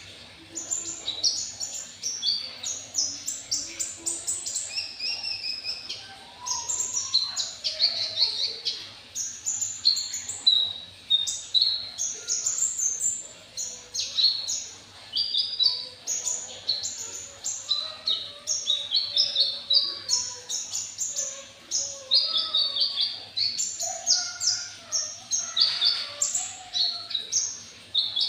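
Caged konin (kolibri ninja), a sunbird, singing a fast, high-pitched twittering song of short chirps in long runs, with brief breaks.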